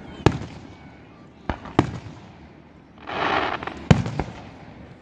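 Aerial firework shells bursting: about five sharp booms with echoing tails, spread across the few seconds. A short rush of noise comes about three seconds in, just before one of the loudest booms.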